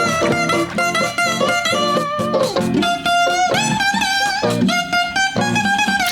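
Instrumental music with a guitar playing a melody of changing and sliding notes.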